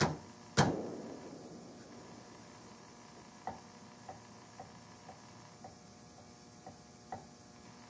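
Rifle action rocked in its fitted wooden stock: a sharp knock about half a second in, then light clicks about twice a second as metal taps on the wood. The action is pivoting on something hitting near its front, a screw that keeps it from seating down in the stock.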